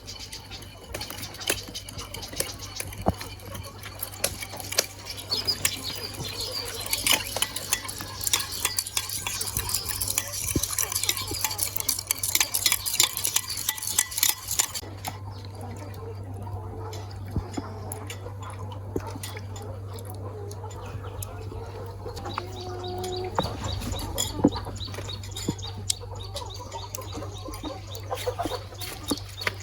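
Kitchen utensils clinking and scraping against dishes and pans in rapid strokes for about the first half, then more sparsely, with hens clucking.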